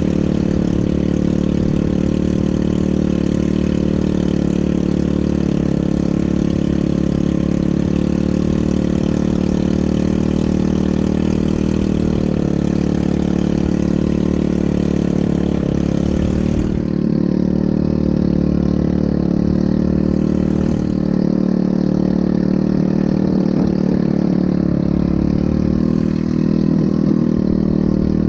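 ATV engine running steadily at an even speed, its pitch holding level throughout.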